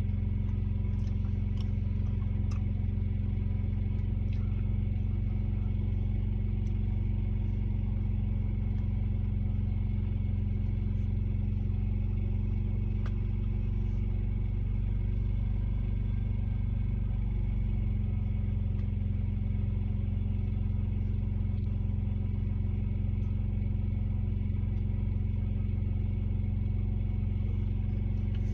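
Truck engine running steadily, heard from inside the cab as a constant low hum.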